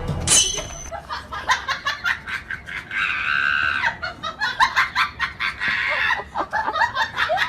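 A person laughing hard in quick repeated bursts, with a longer high-pitched squeal about three seconds in.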